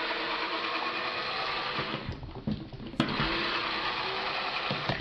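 A steady mechanical whir from a running machine, with a few low knocks about two seconds in and a sharp click about three seconds in.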